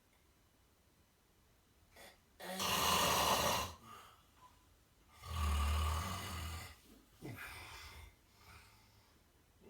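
A person snoring loudly: two long, rasping snores a couple of seconds apart, the second with a deep rattle, then a shorter, weaker snort.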